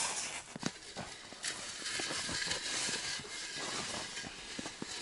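Enamel basin of drained engine oil dragged out over packed snow from under a car: a crunching, hissing scrape for about two seconds in the middle, with small knocks and rustles of handling around it.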